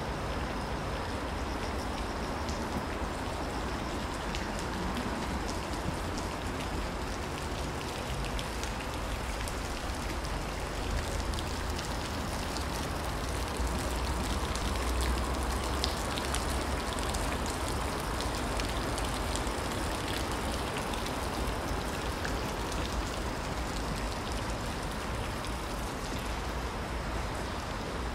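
Steady rain falling, with many small drop ticks over an even hiss and a low rumble underneath that swells slightly about halfway through.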